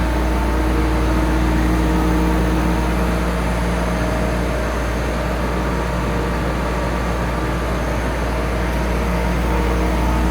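Hofler gear grinder running under power: a steady machine hum with a deep drone and several held tones, no strikes or changes.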